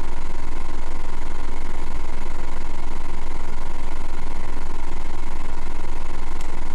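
Steady low-pitched hum with faint higher steady tones above it, unchanging in level; a single faint tick near the end.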